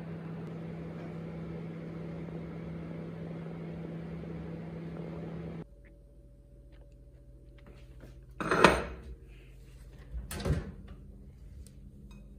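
Steady hum of a microwave oven running, which cuts off abruptly about halfway through. Then two loud clunks about two seconds apart as an electric stove's oven door is opened and handled.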